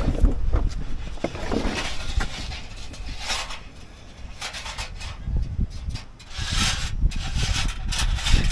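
Irregular rubbing and scraping as electric fence wire is pushed and fished through a hole in the Jeep's frame rail, in several short scrapes with quieter gaps between.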